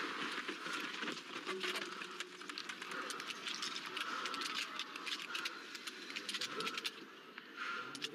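Small-bore .22 biathlon rifles firing from several athletes at once on the standing range: many sharp shots, several a second, overlapping irregularly over steady crowd noise.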